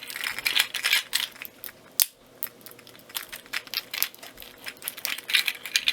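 Small, irregular clicks and rattles of a 3D-printed articulated bunny's plastic joints being wiggled and bent, as the little connective pieces that held them during printing are cracked free, with a sharper click about two seconds in.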